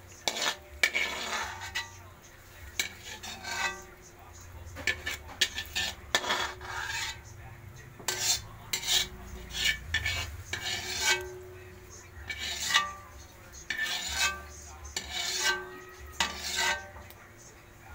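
Metal ladle scraping and clanking against a metal wok in repeated strokes, with short pauses, as scrambled egg is stirred around the pan.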